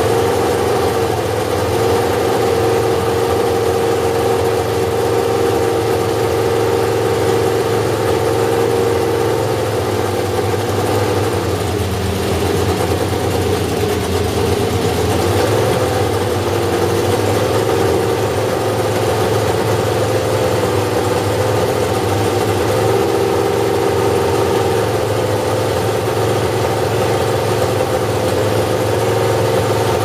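1970 BRM P153 Formula 1 car's 3-litre V12 idling in a stationary car, its engine speed dropping and picking up slightly a few times.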